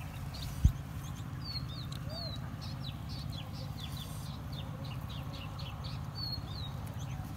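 Small birds chirping: a quick run of short, high, down-slurred chirps, several a second, over a steady low rumble. One sharp thump about a second in.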